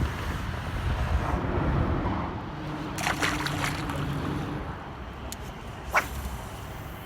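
River water sloshing and trickling at the bank under a low wind rumble, with a few sharp clicks and knocks partway through.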